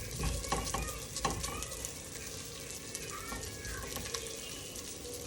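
Salchichón (Spanish hard salami) sizzling as it fries in a hot pot, rendering its fat. A utensil clicks against the pot a few times in the first second or so as it is stirred.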